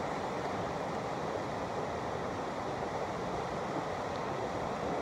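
Mountain stream rushing over rocks and small rapids, a steady wash of water.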